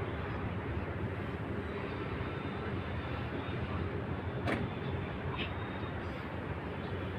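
Steady outdoor background rumble, even and unbroken, with one brief sharp click about four and a half seconds in.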